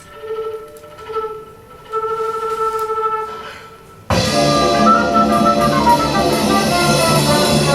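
Recorded music playing: a soft melody of a few held notes, then about four seconds in, loud full-band orchestral music cuts in abruptly.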